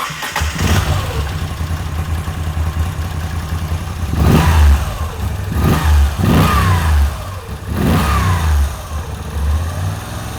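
A 2020 Moto Guzzi V85TT's 90-degree V-twin on its stock exhaust, idling, then blipped several times from about four seconds in, the revs falling back to idle after each blip.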